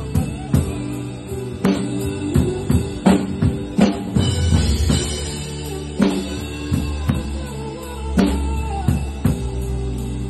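Drum kit played with sticks along to a backing music track: drum and cymbal strikes land every fraction of a second over sustained bass and other pitched instruments.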